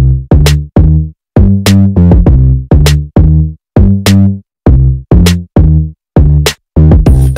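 Background electronic music: a drum-machine beat of short, bass-heavy notes, about two or three a second, with brief silent gaps between some of them.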